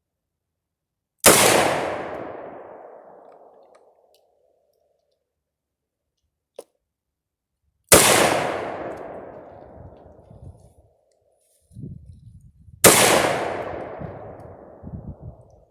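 Three single rifle shots from a SIG rifle chambered in 7.62x39, several seconds apart, each followed by a long echoing tail that dies away over two to three seconds.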